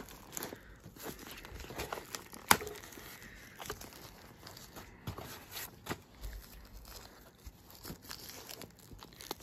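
Paper and packaging rustling and crinkling as items are lifted and shifted inside a cardboard box, with scattered small clicks and taps; one sharper click about two and a half seconds in.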